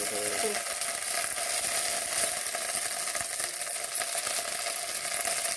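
Hot oil sizzling in a kadhai as fresh moringa leaves are dropped in and pressed down by hand: a steady frying hiss with faint small crackles.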